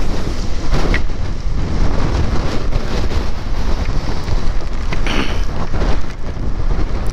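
Strong wind buffeting the microphone of a motorcycle riding through a rainstorm: a steady low rumble over the hiss of rain and spray off the wet road.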